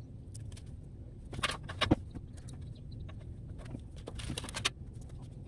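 Hands fitting rubber vibration-dampening pads onto the metal mounting tabs of an attic gable fan's housing: scattered small clicks and rustles, a few sharper ones about one and a half to two seconds in and again between four and five seconds in.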